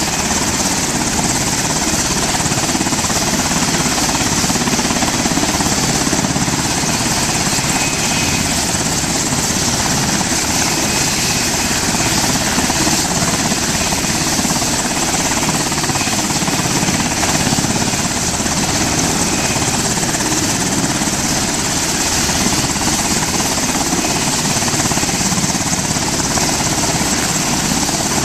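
Sikorsky MH-60S Knighthawk helicopter running on the ground with its rotors turning. Its twin turboshaft engines give a loud, steady sound with a strong high turbine hiss over a low rotor rumble.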